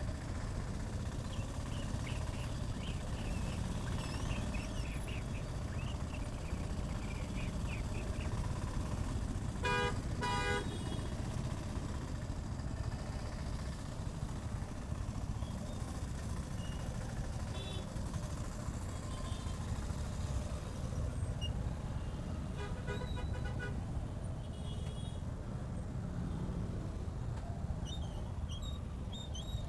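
Motorcycle riding through city traffic, a steady low rumble of engine, wind and road. Vehicle horns honk over it: two short blasts about ten seconds in, and a burst of several quick honks a little past twenty seconds.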